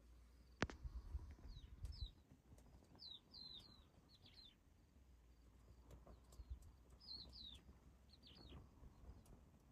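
Faint songbird chirps: short, high, downward-sliding calls in little clusters of two or three, repeating every few seconds over near-silence, with a single sharp click about half a second in.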